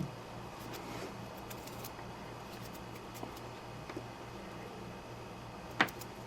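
Small hand tools working the power adapter's cable wires: faint handling clicks, then one sharp snip of a wire cutter near the end, over a steady low hum.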